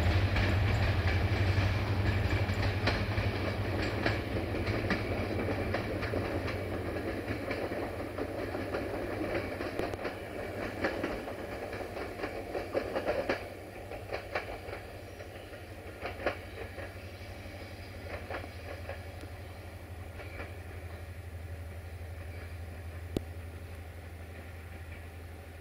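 A train running away from the listener: its rolling rumble fades steadily, with a run of wheel clicks over rail joints around the middle. A steady low drone sits underneath.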